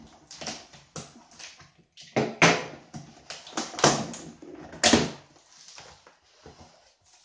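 Utility knife slitting the packing tape along the top of a cardboard box, then the cardboard flaps pulled open: a run of short, sharp rasps and scrapes, loudest about two and a half, four and five seconds in.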